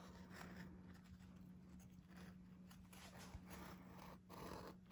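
Faint, scattered snips of duckbill appliqué scissors cutting through embroidery stabilizer.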